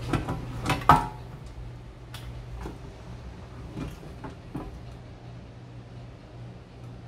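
Hinged cast-iron mini bungeoppang (fish-shaped bread) mold clanking as its plates are handled and closed: a quick cluster of metal knocks in the first second, then a few lighter clicks over a steady low hum.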